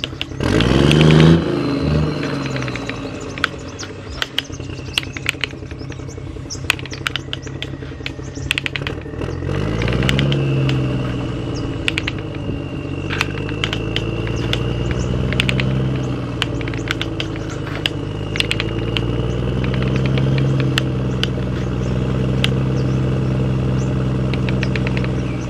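Radio-controlled model construction vehicles (toy trucks and excavator) running with an engine-like drone that rises in pitch twice, with many short clicks and clatter and, from about halfway, a thin high whine.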